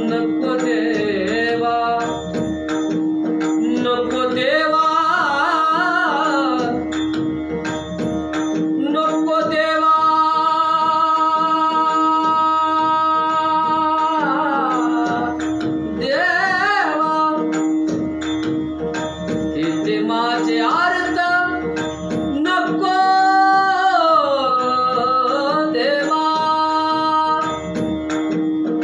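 A male voice singing in Indian devotional vocal practice (riyaz), with long held notes that waver in vibrato and sliding, ornamented runs up and down, over one steady drone note.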